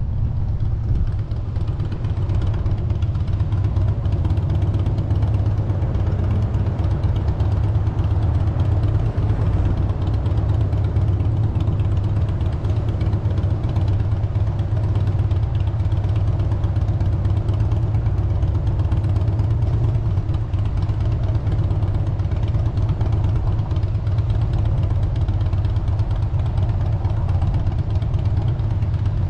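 Ford Fusion driving along, with a steady low rumble of engine and road noise.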